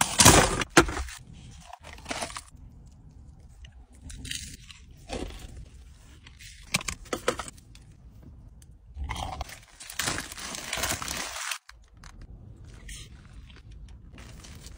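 Eating sounds: crunchy bites into fried chicken and a burger, with chewing and paper food wrappers rustling. The loudest crunches come just after the start, and there is a longer stretch of crunching noise about nine seconds in.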